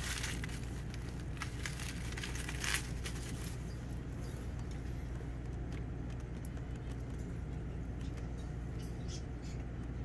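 Faint, scattered rustling and light clicks of a plastic shipping bag being handled as small lizards are coaxed out, busiest in the first three seconds, over a steady low hum.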